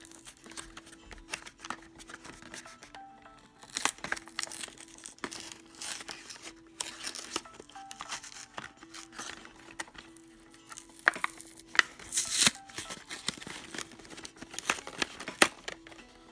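Toy packaging being torn open and crinkled by hand, in irregular rasping tears and crackles, with the sharpest tears near the end, over soft background music.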